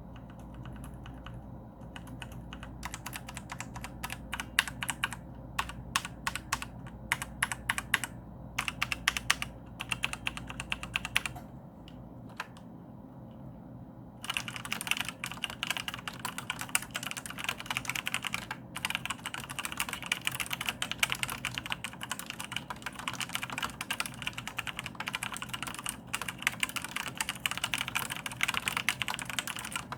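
Maxtill TRON G400K mechanical keyboard with Outemu brown tactile switches being typed on. The keystrokes are scattered and slow at first, pause briefly, then turn to fast, steady typing about halfway through.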